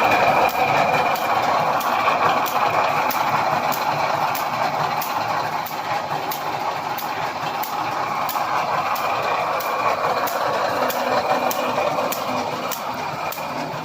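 Automatic welded wire mesh machine running steadily, a constant machine noise with a steady high tone and a fast, even ticking of about three a second.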